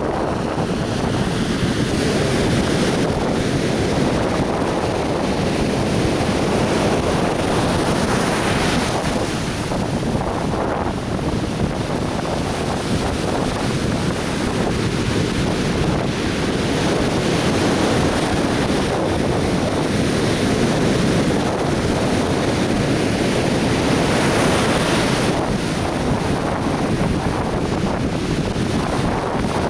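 Atlantic Ocean surf washing steadily onto a beach, with waves swelling a little louder twice and a low rumble of wind on the microphone.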